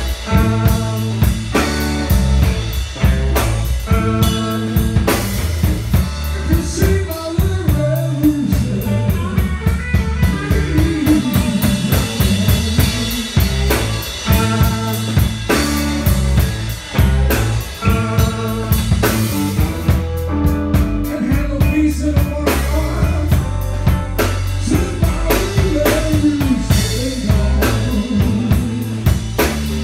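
Live electric blues band playing: two electric guitars, bass guitar and a drum kit with a steady beat.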